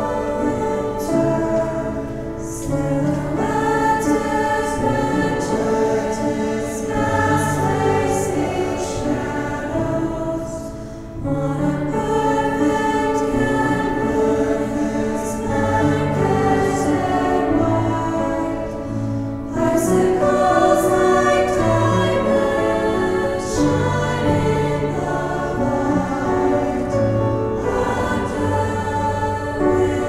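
A high school choir singing a holiday song, with several voice parts in harmony.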